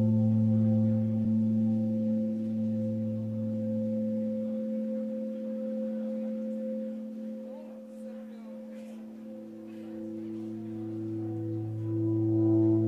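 Ambient drone from a live space-rock band: steady, held electric guitar and keyboard tones with no beat. The lowest note fades out about four seconds in, then returns with a higher note around nine seconds in, and the drone swells louder near the end.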